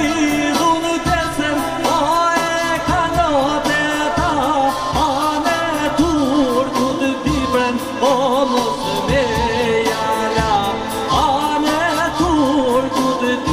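Albanian folk song sung live into a microphone, the voice wavering through ornamented turns over amplified backing music with a steady beat.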